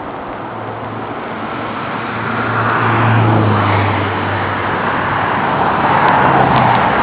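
Road traffic passing: an engine hum and tyre noise swell as a vehicle goes by about three seconds in, with a second swell near the end, over a steady background hiss.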